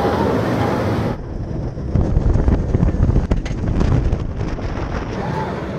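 Roller coaster ride heard from the back row of the Zadra RMC hybrid coaster's train: wind buffeting the microphone over a dense low rumble of the train on its steel track, with scattered rattles and clicks. It begins about a second in, where the sound changes abruptly from open-air sound beside the ride.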